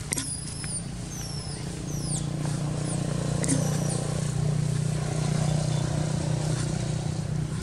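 A motor vehicle's engine running steadily, a low hum that grows louder about two seconds in. A few short, high, falling chirps sound over it in the first four seconds.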